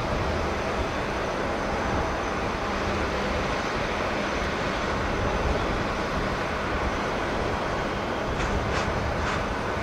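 Boeing 787-9 airliner's jet engines at takeoff power, a steady roar as the plane climbs away after liftoff. A few faint short clicks come near the end.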